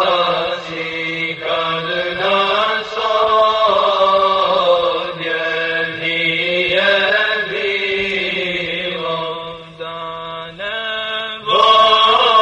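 A nasheed: unaccompanied voices chanting long, held notes over a steady low drone, with a louder phrase starting near the end.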